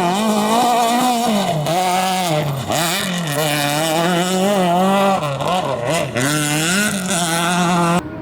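Competition engine run hard, its pitch repeatedly climbing and dropping as the throttle is worked and gears change. It cuts off abruptly near the end.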